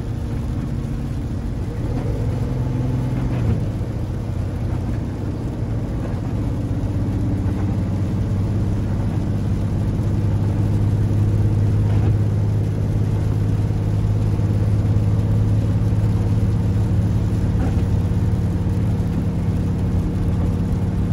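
Diesel engine of a Super C motorhome on a Freightliner chassis working up a steep mountain grade, heard from inside the cab as a steady low drone over road noise from the wet pavement. The drone grows stronger a little under halfway through.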